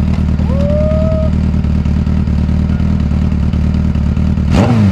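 Motorcycle engine idling steadily, with one short throttle blip about four and a half seconds in that falls back to idle.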